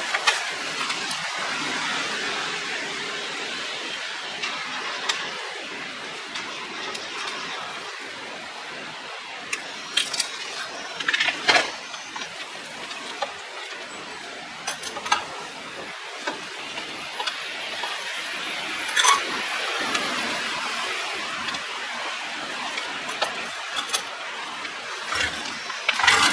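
Keys jangling and a few small metallic clicks as a rider readies a parked motorcycle, over a steady background hiss. The clicks cluster around ten to twelve seconds in, with more near fifteen and nineteen seconds.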